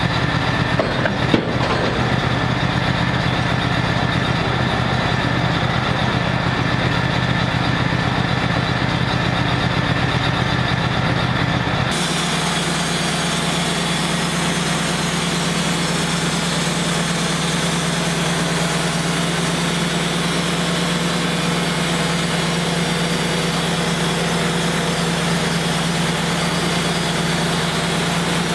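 Wood-Mizer LT35 portable band sawmill's engine running steadily at speed, with a small click about a second in. About twelve seconds in the sound changes abruptly to less low hum and more high hiss.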